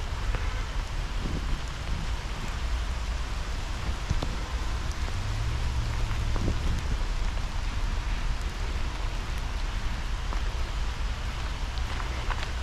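Steady outdoor hiss with a low rumble underneath and a few small scattered clicks.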